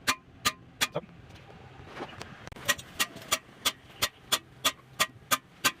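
Hammer blows on a cam bearing installer driving new cam bearings into the 1973 Ford F-250 engine block. The blows are sharp metallic taps, about three a second, with a pause of about a second and a half after the first three.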